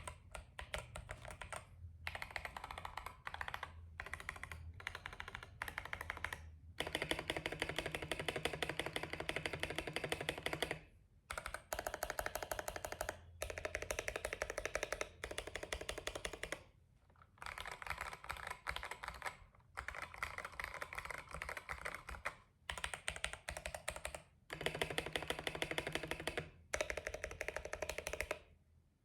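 Mechanical keyboard typed on fast, in a typing sound test: a dense run of key clicks in bursts of one to four seconds with short pauses between them, stopping shortly before the end.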